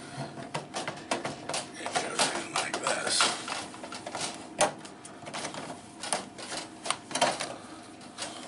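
Plastic vent-blower housings of a microwave oven being handled and seated onto its sheet-metal cabinet: irregular plastic clicks, rattles and knocks, with a sharp click about four and a half seconds in.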